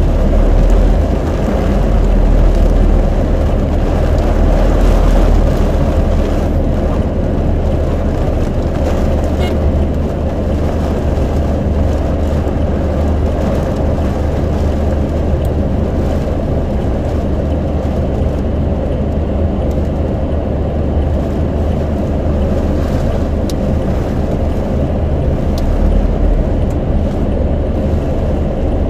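A vehicle driving: a steady, low engine and road rumble with no sudden events.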